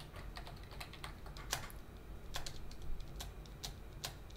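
Computer keyboard keystrokes, separate sharp clicks at an irregular pace, a few a second: a password being typed and the Enter key tapped through a run of prompts.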